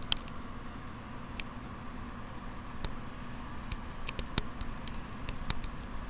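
Air-cooled desktop PC running under full Folding@home load, its fans, including the GeForce 8800 GTS graphics card fan at 75% speed, giving a steady whirring hum with a thin high tone above it. A few light clicks come through on top.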